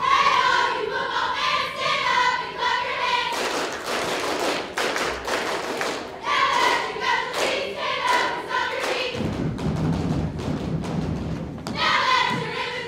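A girls' cheerleading squad shouting a cheer in unison, punctuated by sharp claps and stomps. The chant breaks off for a few seconds of clapping and stomping in the middle, gives way to low thuds later, and starts again near the end.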